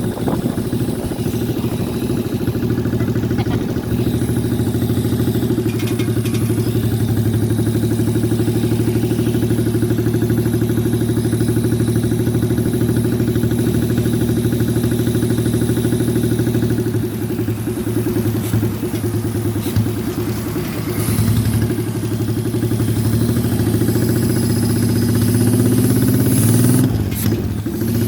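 Custom motorcycle's 1000cc car engine running steadily, its speed climbing over the last few seconds, with a brief dip shortly before the end.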